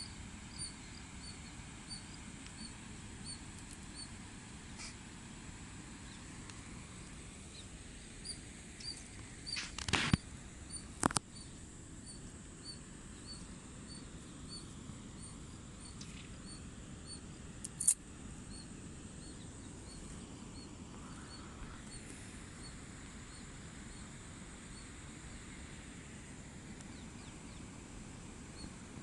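Steady outdoor hush with a faint high chirp repeating about twice a second. A few sharp clicks and knocks from handling fishing tackle are the loudest sounds: about ten seconds in, again a second later, and once more about eighteen seconds in.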